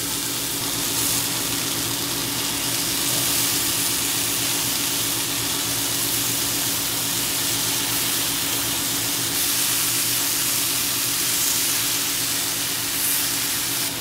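Scallops searing in a hot pan, a steady sizzle, with a low steady hum underneath.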